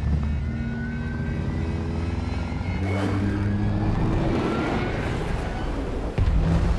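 Military aircraft engines in a film sound mix, a steady loud drone under dense rushing noise, with a faint rising whine in the middle. It turns suddenly louder near the end.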